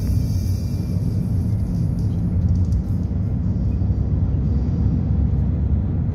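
Steady low road rumble of a car driving at highway speed, heard from inside the cabin: tyre and engine noise. A higher hiss fades away in the first second as the car leaves the tunnel.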